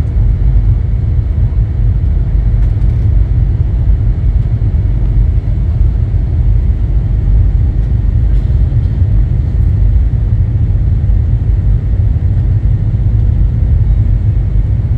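Airliner cabin noise in flight: a loud, steady low rumble of engines and airflow heard from inside the passenger cabin, with a faint steady whine above it.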